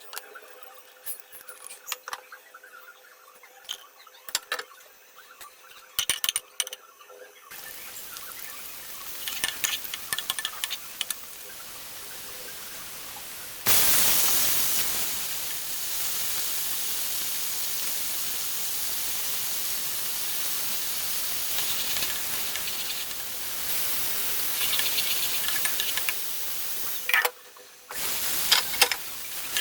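Kitchen clatter and light clicks of utensils. Then, about halfway through, a sudden loud sizzle as cauliflower goes into hot oil in a pan, settling into a steady frying hiss. It cuts off a couple of seconds before the end, and a few more utensil clicks follow.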